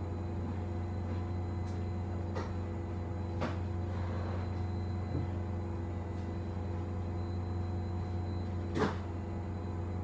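Steady low hum of a stationary city bus with its systems running, heard inside the passenger cabin, with a few light clicks and one sharper knock near the end.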